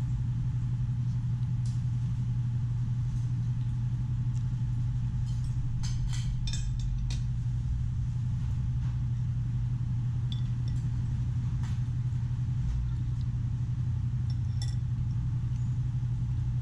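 Restaurant room tone: a steady low machine hum, with a quick run of light tableware clinks about six seconds in and a few faint clicks elsewhere.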